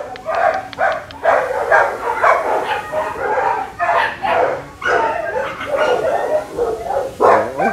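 Many shelter dogs barking in their kennel runs, short overlapping barks and yips one after another without a break, with a short rising whine near the end.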